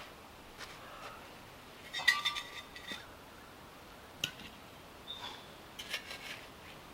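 Hard objects clinking and tapping with a short metallic ring. A cluster comes about two seconds in and another about six seconds in, with a few lighter taps between.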